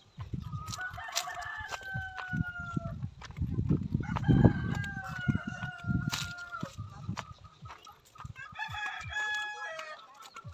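Roosters crowing, about three long crows one after another, over low rumbling noise on the microphone.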